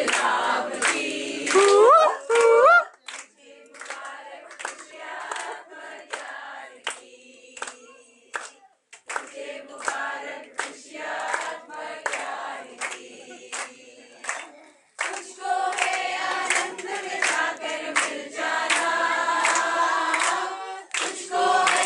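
A group of people singing together in unison while clapping along in a steady rhythm. A single voice rises in a high glide about two seconds in, and the singing breaks off briefly several times.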